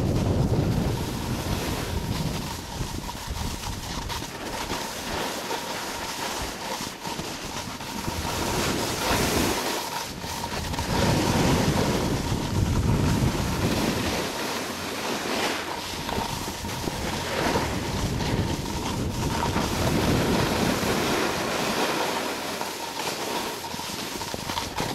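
Wind rushing over the microphone in gusts, swelling and fading every few seconds, with a faint steady high tone underneath.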